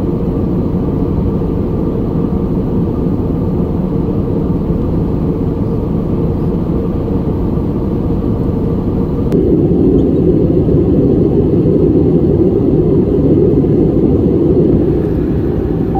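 Steady cabin noise of an Airbus A320 in flight, heard inside the cabin: a low drone of engines and airflow. About nine seconds in it becomes a little louder and heavier, then eases back near the end.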